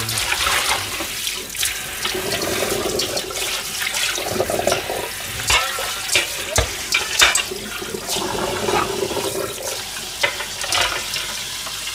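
Kitchen tap running into a stainless steel sink and pot while dishes are rinsed under it. Several sharp clinks and knocks of bowls and containers come through the rush of water, the loudest about seven seconds in.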